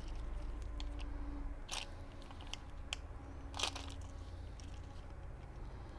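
Light handling noises: scattered soft clicks and two short rustling scrapes, about two seconds apart, over a low steady hum.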